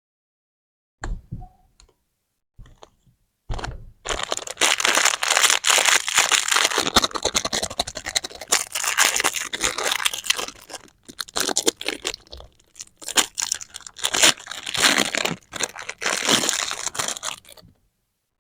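Lollipop packaging being torn open and crinkled: a few short rustles, then a long stretch of continuous crackling and tearing that stops suddenly near the end.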